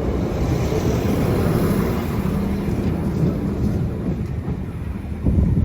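Northern Ireland Railways Class 3000 diesel multiple units running past at the level crossing: a steady low rumble of engines and wheels on rail, easing slightly near the end.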